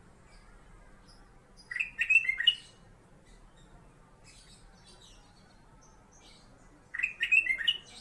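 Kutilang emas bulbul (Pycnonotus melanicterus) singing: two short phrases of a few quick whistled notes each, about five seconds apart, with faint high chips in between.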